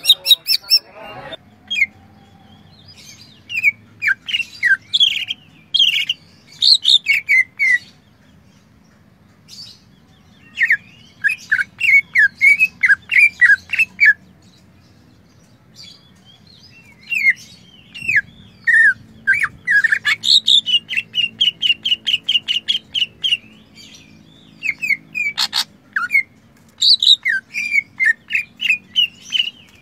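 Caged male cucak ijo (green leafbird) singing in loud bursts of quick, sharp, down-slurred whistled notes, broken by short pauses. Partway through, the notes turn into a fast, even trill of repeated notes. A single sharp click comes about three-quarters of the way through.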